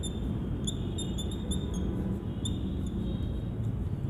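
Writing on a board: short, high squeaks and ticks several times a second over a steady low room hum.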